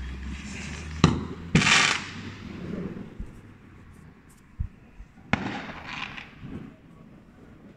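Fireworks going off: a sharp bang about a second in, then a louder crackling burst, and another bang with crackle a little past halfway.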